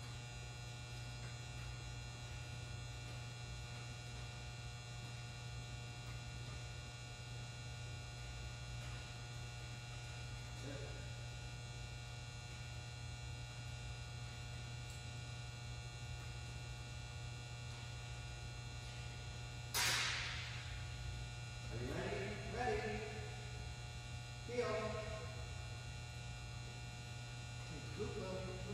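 Steady low electrical hum. About twenty seconds in there is one sharp crack, followed by a few short voice sounds.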